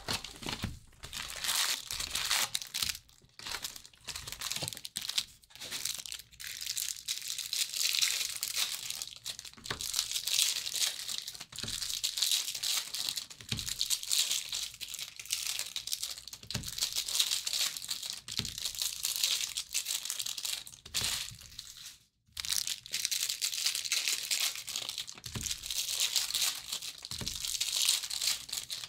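Foil wrappers of baseball card packs crinkling and tearing as they are handled and opened, a dense, irregular crackle with a few soft knocks against the table.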